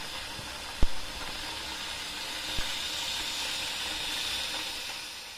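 Kettle coming to the boil, a loud steady hiss that eases off near the end. A sharp tap about a second in.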